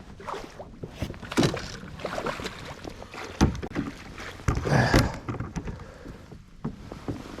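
Irregular knocks, rustles and splashes from someone handling gear and moving about in a fishing kayak on the water, the loudest bursts about a second and a half, three and a half, and five seconds in.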